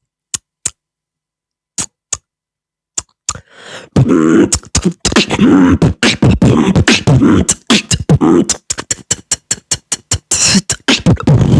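Beatboxing: a few sparse, sharp mouth clicks at first, then from about four seconds in a fast, dense run of mouth percussion mixed with pitched vocal sounds.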